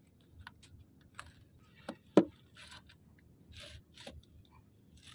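Fishing tackle handled while a rod is rigged: scattered small clicks and ticks, a dull knock about two seconds in, and a couple of short scratchy rustles.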